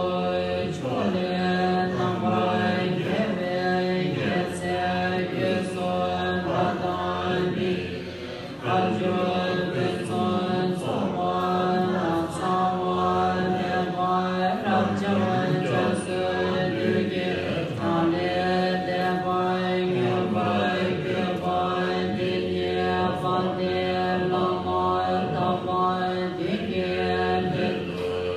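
Assembly chanting a Tibetan Buddhist long-life puja liturgy together, a steady continuous chant with a short break about eight seconds in.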